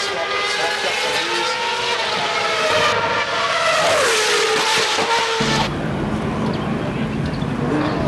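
Formula One cars' 2.4-litre V8 engines running at very high revs as they pass, the pitch falling as a car goes by about four seconds in. About five and a half seconds in the sound cuts suddenly to a lower, steadier engine drone.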